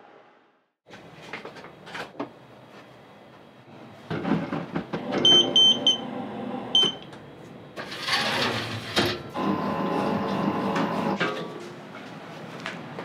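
Commercial bakery dough mixer running with a steady mechanical whir, its controls giving a few short high beeps partway through; scattered knocks and clatter of handling around it.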